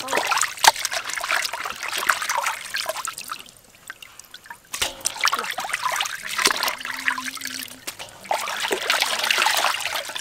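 Water sloshing, splashing and trickling in a steel basin as raw beef and tripe are rubbed clean by hand and lifted out, streaming and dripping back into the water, with a short lull near the middle.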